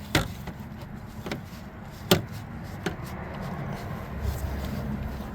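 A few sharp knocks, the loudest about two seconds in, over a low steady rumble.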